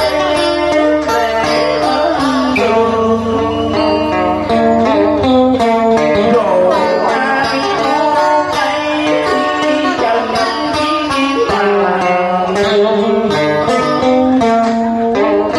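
Vietnamese đờn ca tài tử / cải lương music, a melody on plucked string instruments with notes that bend and slide in pitch.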